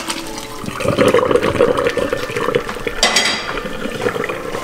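Boiling water and cooked ramen noodles poured from a pot into a stainless steel colander in a sink, the water splashing and draining through. The pour is heaviest from about a second in and lasts around two seconds.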